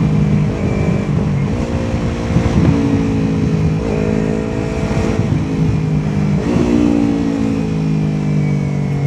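Yamaha R3's 321 cc parallel-twin engine heard from the riding motorcycle, its note sinking slowly and then jumping up in pitch about four times, with wind rushing over the microphone.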